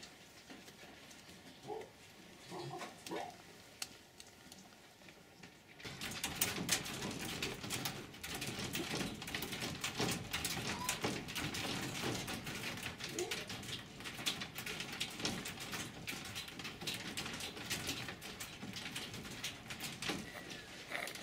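A few short, high whimpering calls from an arctic fox cub in a wire cage; then, about six seconds in, a silver fox moving fast in a wire-mesh cage, the mesh rattling and clattering steadily under it, with an occasional whine.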